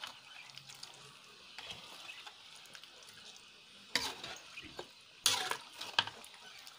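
Long metal ladle stirring a chicken stew in a large aluminium wok, over a faint steady simmering hiss, with sharp knocks of the ladle against the pan about four and five seconds in.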